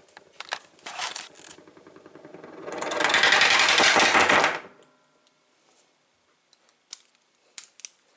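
A spinning padlock rattling rapidly against the surface under it. The rattle builds from about two seconds in and stops abruptly a little past halfway, as the lock comes to rest. A few light clicks come before and after.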